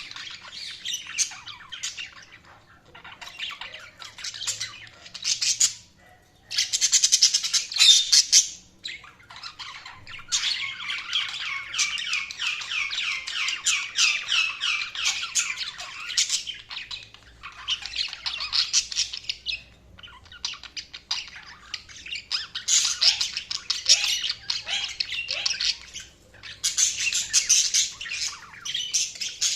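Budgerigars chirping and warbling, with fast runs of high chattering notes and harsher squawks coming in bursts separated by brief pauses.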